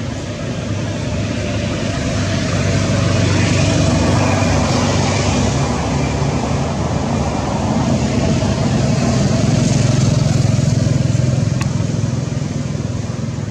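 Motor vehicle traffic passing, a steady engine drone that swells twice, about a third of the way in and again near two thirds.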